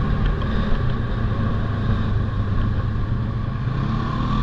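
Polaris Sportsman ATV engine running at a steady pace while riding a rough dirt trail, heard close up from the rider's seat.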